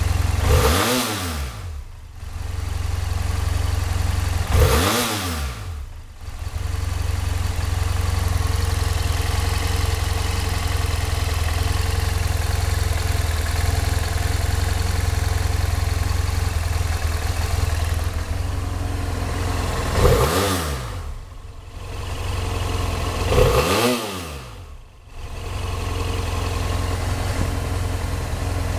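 BMW F800S's 798 cc parallel-twin engine idling steadily, blipped four times: the revs rise quickly and fall back to idle twice in the first five seconds and twice more about twenty and twenty-four seconds in.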